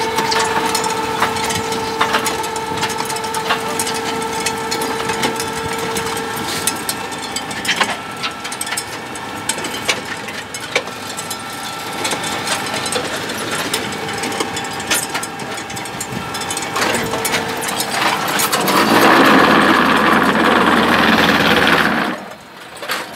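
Terra turbo pan-type concrete mixer and its belt conveyor running: a steady machine hum with a whine over it for the first few seconds, and frequent rattles and knocks throughout. Near the end a louder rushing noise runs for about three seconds and stops sharply.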